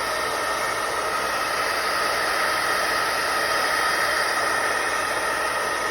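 Craft heat tool blowing steadily, a whirring rush of air with a steady whine, drying water-spritzed Distress ink on a card background.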